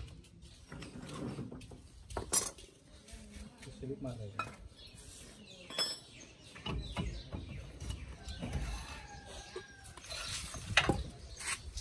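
Scattered metal clinks and scrapes as a Mahindra Bolero 4x4's front axle shaft, with its universal joint, is worked out of the steering knuckle by hand.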